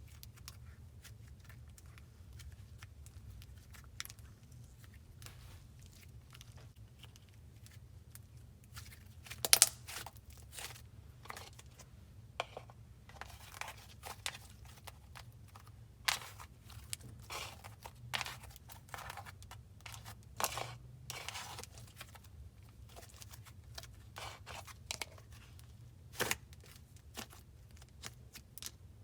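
Slime being stretched, squished and pulled apart by hand, giving scattered soft crackles, tearing sounds and small pops. The loudest pop comes about a third of the way in.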